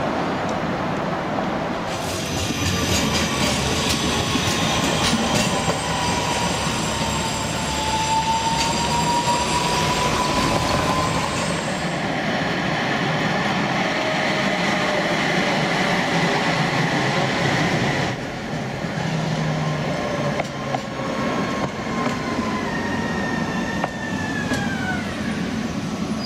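Tatra trams running past on street track, several passes in a row. The electric traction motors whine, rising and falling in pitch as the trams pull away and slow, over the rumble of the wheels on the rails, with a falling squeal near the end.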